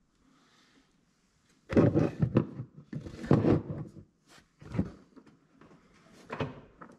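Hands knocking and rustling as a power cable is pulled up through a side-by-side's roll-cage tube with a zip tie, a sleeve brushing close by. After about two seconds of quiet comes a cluster of loud knocks and rubbing, then two more single knocks.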